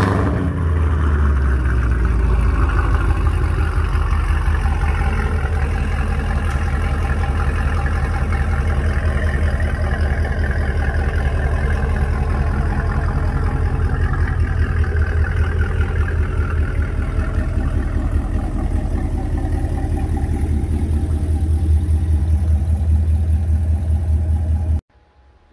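2019 Camaro SS's 6.2-litre LT1 V8 with aftermarket headers running at a steady speed on a chassis dyno, its exhaust loud and even. The sound cuts off suddenly near the end.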